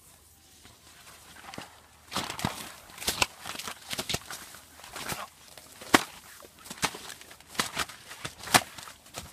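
A young elephant handling a blue plastic hoop with its trunk: irregular sharp crackles and knocks as the hoop is pushed along the grass and flung about, the loudest about six seconds in.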